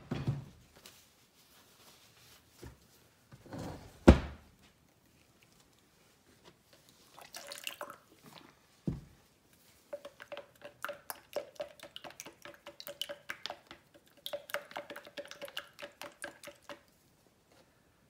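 Painting gear handled on a padded table: a canvas set down with a few thumps, the loudest about four seconds in, then about seven seconds of rapid clicking and scraping.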